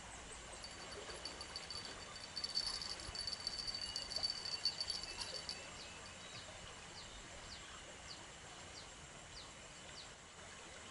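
Quiet natural ambience: a high, rapidly pulsing insect trill for the first half, then a run of short, high, falling bird notes repeated about every half second.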